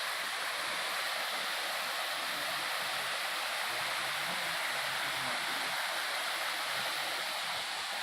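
Waterfall's falling water making a steady rushing noise.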